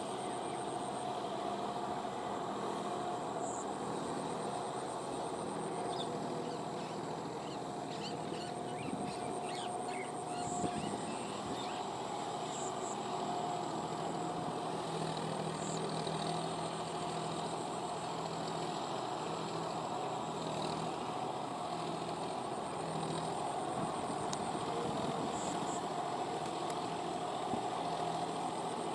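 John Deere 5045D tractor's three-cylinder diesel engine running steadily under load as it pulls through wet paddy mud on half cage wheels.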